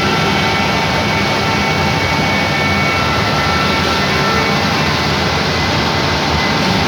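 CNC router running as it mills wood: a loud, steady machine noise with several high steady tones from the spindle.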